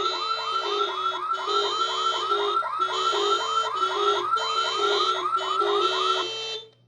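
Lionel FEC Vision Line autorack's onboard alarm sound effect: a loud electronic security-style alarm of rapid repeating chirps, about four or five a second, over a lower two-note warble. It cuts off about six and a half seconds in.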